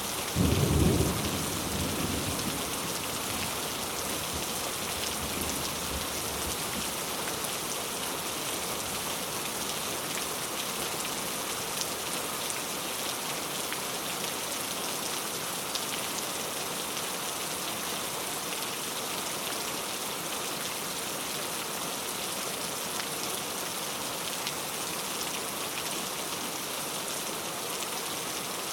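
Steady rain falling, a constant hiss, with a clap of thunder just after the start that rumbles away over a couple of seconds.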